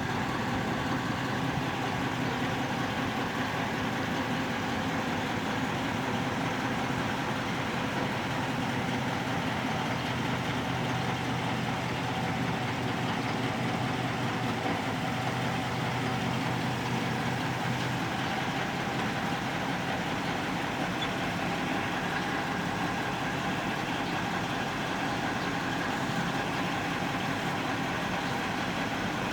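A motor running steadily, an even hum with faint steady tones over a noisy bed.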